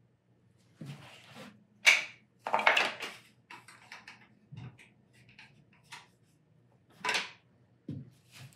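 Workshop handling noises: a string of knocks and short clattering rattles as objects are handled on a bench. The loudest knock comes about two seconds in, and another near seven seconds, over a faint steady low hum.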